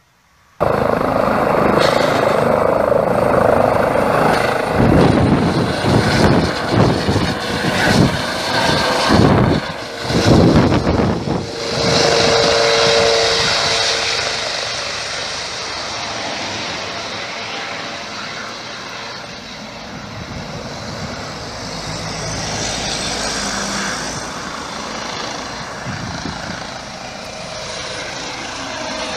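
Police helicopter lifting off and flying away, its rotor and turbine noise loud and close. The sound is uneven and gusty for about the first ten seconds, then settles into a steady drone that eases a little and builds again near the end as the helicopter comes back overhead.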